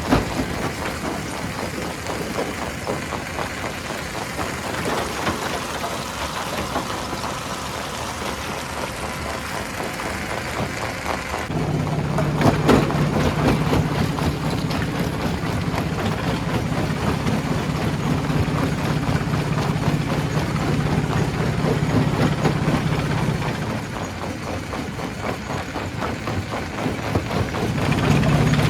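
Stone crusher running, with a continuous clatter of rock being broken and shaken through the machinery. A steady low engine hum comes in partway through, drops out a few seconds before the end, then returns; one sharper crack sounds shortly after the hum starts.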